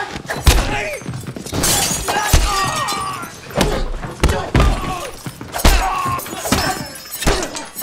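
Film fight sound effects: a rapid series of heavy blows and thuds, with glass display cases shattering, and grunts from the fighters in between.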